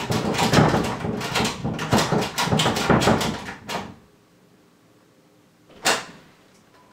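Rapid, loud pounding on a wooden interior door for about four seconds, then a single click of the doorknob latch about six seconds in as the door opens.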